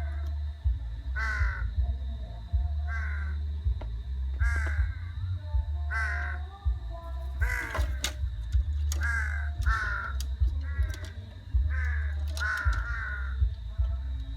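Crows cawing over and over, about a dozen short harsh caws, roughly one a second, some overlapping near the end. A low rumble runs underneath, breaking off and returning.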